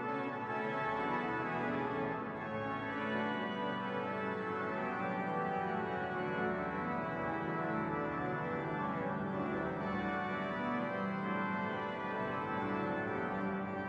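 Church pipe organ playing slow, sustained chords in a large, echoing church.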